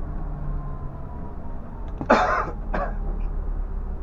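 A person coughs twice, about two seconds in and again just after, over the steady low hum of the Scania bus's diesel engine.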